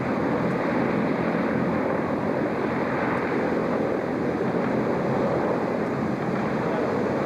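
SR.N4 hovercraft running at speed on its air cushion: a steady noise of its propellers and engines mixed with the rush of spray and wind.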